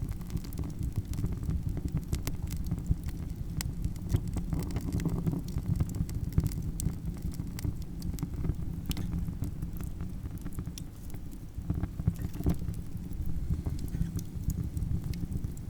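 Campfire crackling, with frequent sharp snaps and pops scattered irregularly over a steady low rumble.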